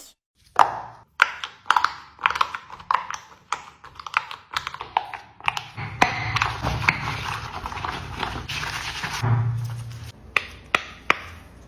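Small plastic fidget toy being clicked and tapped by hand, giving a run of sharp, irregular clicks, several a second.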